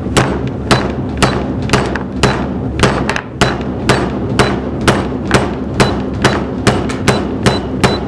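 A steel hammer fitted with a 30 mm Pile Driver metal-face inductive sensor drives a nail into a wooden block in a steady run of sharp blows, about two a second. The sensor's face takes the blows and still works.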